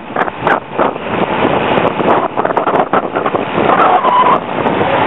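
Wind rushing over the microphone of a camera riding on a moving road bicycle, mixed with rolling road noise; the rush swells and dips unevenly.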